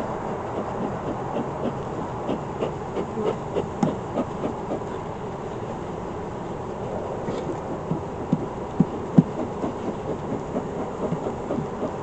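Bees being brushed off a wooden hive frame: a series of light, irregular taps and rubs of the brush and wooden frame, a few sharper knocks near the end, over a steady hum from the open hive.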